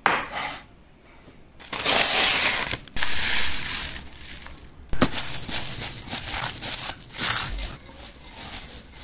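A glass bowl set down on a wooden board, then dry bread crumbs and cornflakes tipped into it. From about five seconds in, a gloved hand crushes the cornflakes in the bowl, making a dry crunching and crackling.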